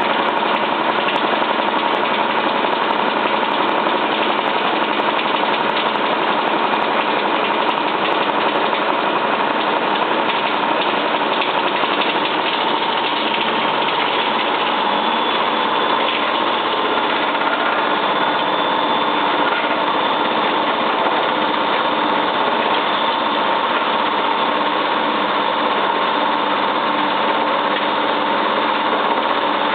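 Cylinda 12002 washing machine in its final spin, the drum running fast with a steady whine over a loud rough noise, as if something were stuck in the drum; nothing was found in the inspection pocket.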